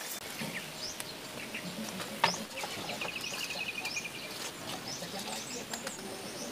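Birds chirping and trilling in the background over a faint hiss, with a single sharp tap or click a little over two seconds in.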